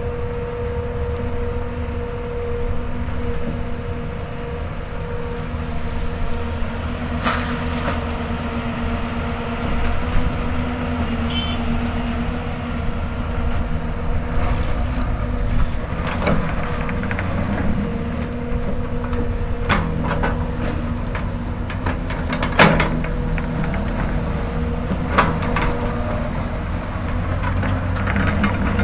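Hyundai Robex 220-9S excavator working: its diesel engine runs steadily under load with a constant hum, and several sharp knocks and scrapes come as the bucket strikes hard ground.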